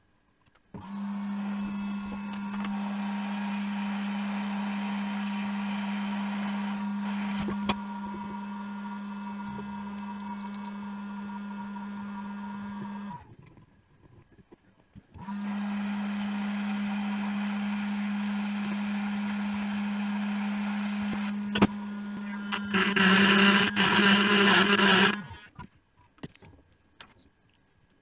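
Hot-air rework station blowing 480 °C air to desolder a MOSFET: a steady motor hum over rushing air. It stops abruptly about 13 s in and starts again two seconds later. It grows louder and rougher for a couple of seconds before cutting off near the end.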